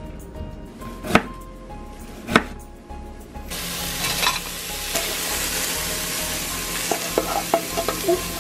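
A few sharp knocks, then diced red onion and red peppers start sizzling in a hot stainless steel pan about three and a half seconds in. A wooden spoon stirs them, clicking against the pan.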